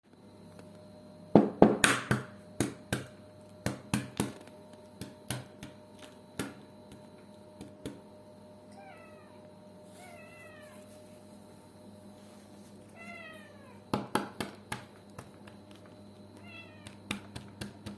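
An egg is knocked repeatedly against a hard surface, a run of sharp irregular taps. A domestic cat answers with four short meows, each falling in pitch, and a few more taps come between the meows.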